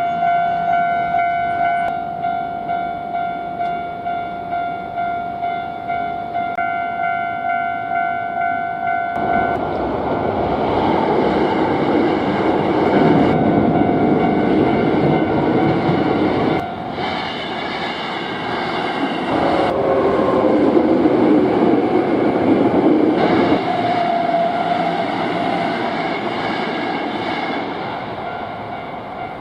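Japanese level-crossing warning bell ringing in a steady rapid kan-kan, then a Hankyu Kyoto Line train running over the crossing from about nine seconds in, its noise covering the bell, which keeps ringing underneath until the train noise fades near the end.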